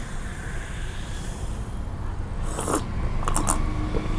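A few short clicks and light rustles over a low steady hiss. They come in a cluster about two and a half to three and a half seconds in, with one more near the end.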